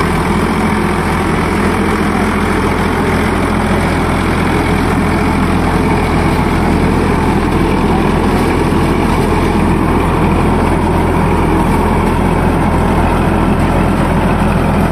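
Eicher 551 Super Plus tractor's diesel engine running steadily at an even, unchanging speed.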